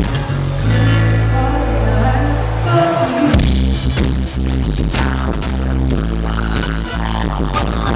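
Live band music played loud through a PA, with held bass notes, drum hits and a singer's voice, including a bass slide about three seconds in. It is recorded on a camcorder's microphone from the crowd, with poor, harsh sound quality.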